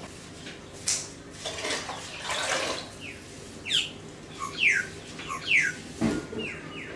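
Water running and splashing into a stockpot of chicken pieces being filled for stock, in several short rushes. A bird calls in the background with a run of quick chirps that fall in pitch through the second half.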